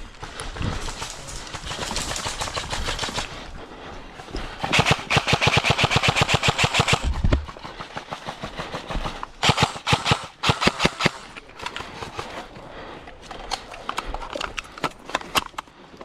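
Airsoft rifles firing: a long full-auto burst at about ten shots a second lasting over two seconds, followed by shorter bursts and scattered single shots.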